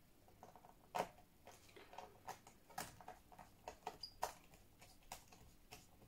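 Faint, irregular small clicks of a hand screwdriver turning screws into a laptop's plastic bottom cover, about a dozen over the few seconds, the loudest about a second in.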